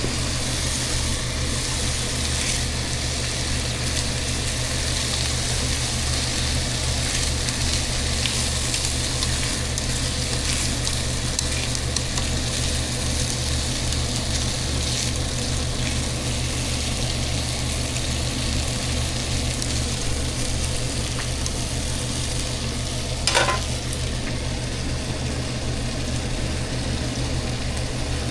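Food frying, with a steady sizzle over a continuous low hum and a few faint clicks. A single sharp clatter about 23 seconds in is the loudest sound.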